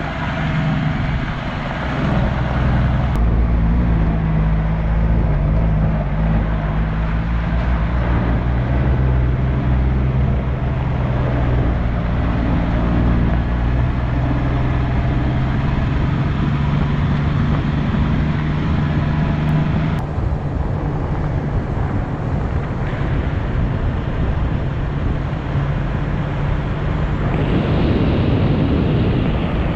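Off-road 4x4 engine running steadily while driving, with tyre and road noise; the sound changes abruptly about three seconds in and again about twenty seconds in.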